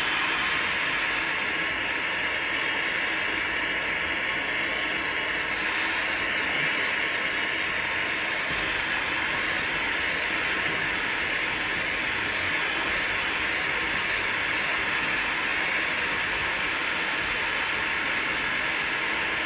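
Express hot air gun Cat. No. 4600 running steadily: the even, fairly high hiss of its fan blowing air through the nozzle, with no change in pitch or level.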